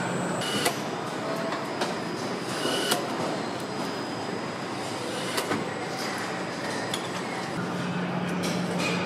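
Car assembly-hall noise: a steady wash of machinery with scattered metallic clinks and clicks. A low steady hum drops out just after the start and comes back near the end.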